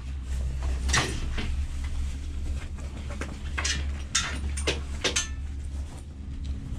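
Ten-seat Doppelmayr gondola cabin passing over a line tower's sheaves: a series of short clunks, four of them about half a second apart past the middle, over the steady low rumble heard inside the moving cabin.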